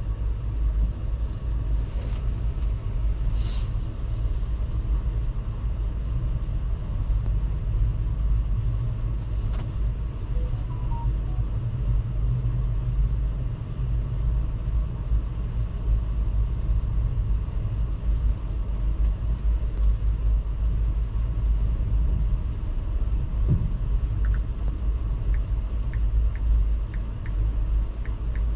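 Steady low rumble of the Via Rail Canadian passenger train, with a few faint clicks about two to four seconds in.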